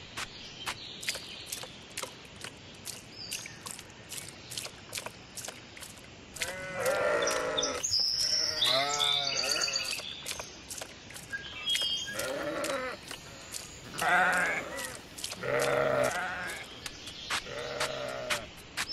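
A farm animal bleating about six times, with each call lasting about a second, over a steady run of short clicks.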